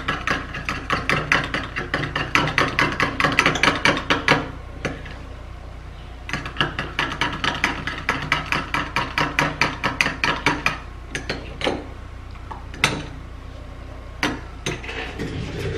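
Metal spoon clinking rapidly against a small glass bowl while stirring a thick, creamy mixture, in two quick spells with a short break between, then a few single clinks near the end.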